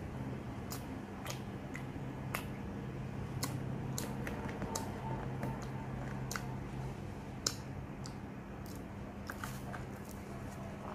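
Eating crispy fried sweet potato pieces: irregular sharp crunches and crackles, about two a second, from biting, chewing and handling them. A steady low hum runs underneath.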